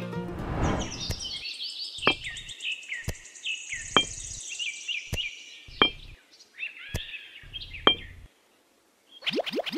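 Birds chirping, with about eight sharp clicks roughly a second apart as miniature clay bricks are set down on a hard board. Near the end the sound drops out for a moment and music starts.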